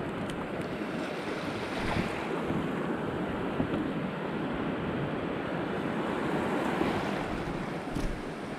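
Shallow surf washing over a coral reef flat, a steady wash of water with wind buffeting the microphone. A few faint clicks sound over it.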